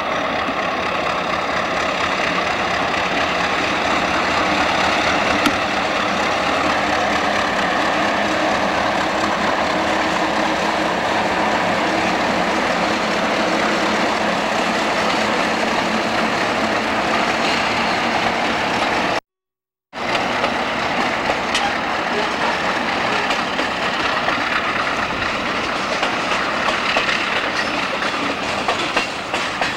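Trona Railway Baldwin diesel locomotives running past with a train of covered hoppers: steady engine rumble mixed with wheel and rail noise. The sound cuts out completely for under a second about two-thirds of the way through.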